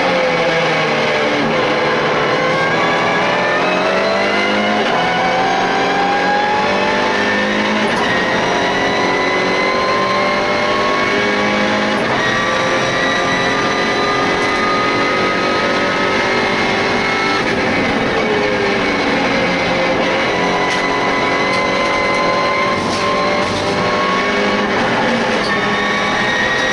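In-cabin sound of a MINI John Cooper Works Challenge race car's turbocharged four-cylinder engine at racing speed. The note dips just after the start, then climbs slowly and steadily at full throttle for a long stretch. About two-thirds of the way through it falls away as the car slows, then climbs again.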